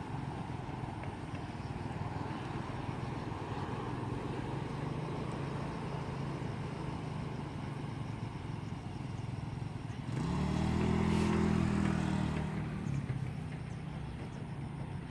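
A motor vehicle's engine running steadily, swelling louder for a couple of seconds about ten seconds in.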